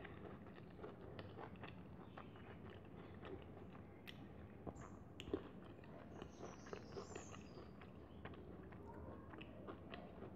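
Faint hand-eating sounds: fingers mixing rice on a steel plate, with chewing and soft mouth clicks. One sharper click about five seconds in.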